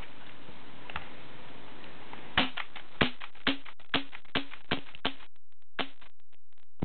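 Gas-powered airsoft gun fitted with a silencer, fired in a run of about eight quick sharp shots, roughly two a second, each a short crack with a brief low ring after it.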